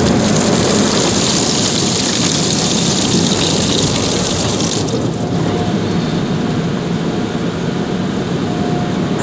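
Tunnel car wash heard from inside the car: a loud hiss of water spraying on the windshield over the steady rumble of the wash machinery. The hiss cuts off suddenly about five seconds in, leaving the rumble.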